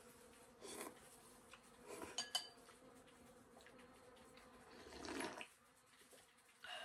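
Quiet eating sounds from a ceramic noodle bowl: a sharp clink of chopsticks against the bowl about two seconds in, and a longer slurp of broth drunk straight from the bowl around five seconds in.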